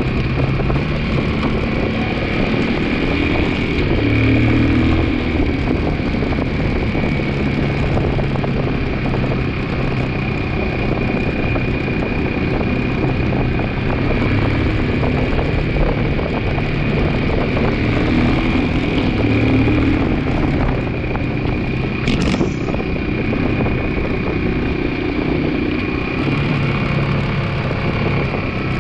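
2002 Yamaha 225 motorcycle's single-cylinder engine running under way, its revs rising and falling, with a steady high whine over it. One sharp clunk comes about three-quarters of the way through; the rider suspects something going on with the transmission, possibly the clutch.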